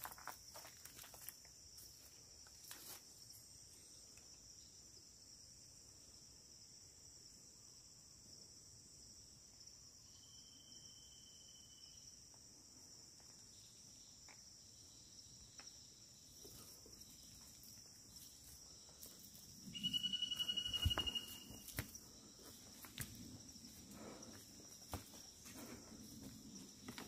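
A steady high insect drone in a teak forest, with faint scattered footsteps on the forest floor. A short, high, steady whistling call sounds faintly about ten seconds in and louder about twenty seconds in, the loudest thing heard.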